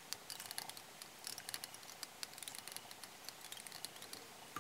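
Faint, irregular small clicks and ticks of fly-tying thread being wound in open spirals over a deer-hair tail on a hook in the vise, with fingers handling the hair.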